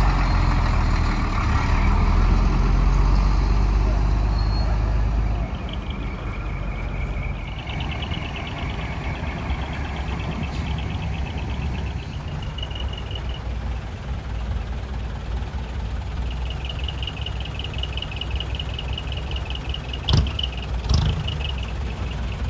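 Medium-duty truck's diesel engine running at low speed close by, a heavy rumble that drops to a quieter steady rumble about five seconds in. Near the end come two short sharp clicks.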